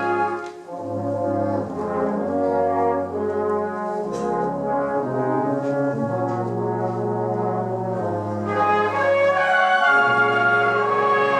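A concert wind band playing long held chords, with the brass prominent. The sound dips briefly just after the start, then swells with brighter upper voices entering about three-quarters of the way through.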